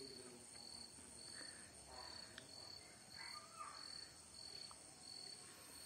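Near silence with faint insects chirping: a steady high trill and a pulsing chirp repeating a bit under twice a second.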